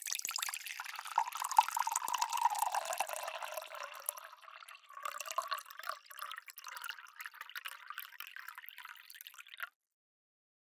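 Water poured into a cup: a full splashing stream for the first few seconds, then a thinner, trickling pour that stops abruptly about a second before the end.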